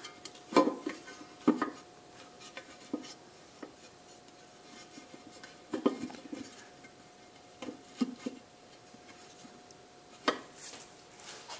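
Cast aluminium oil pan being set onto a motorcycle engine's crankcase over a handmade gasket, giving scattered light metal clinks and knocks as it is shifted into position by hand.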